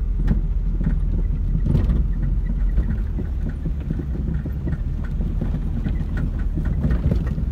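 Vehicle driving over a rough dirt road, heard from inside the cab: a steady low engine and road rumble with scattered knocks and rattles as it goes over the bumps.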